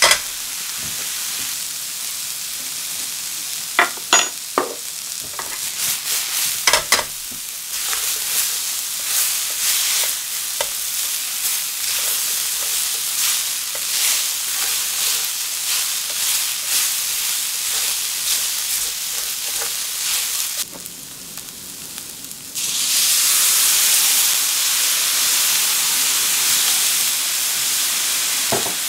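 Cauliflower and aubergine pieces sizzling in oil in a frying pan while being stirred with a spatula, with a few sharp knocks of the spatula against the pan in the first quarter. About three-quarters through the sizzle drops for a couple of seconds, then comes back louder and hissier.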